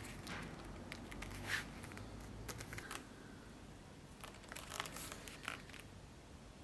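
Soft rustling and scuffing of hands handling a leather-covered sword scabbard, in several short bouts.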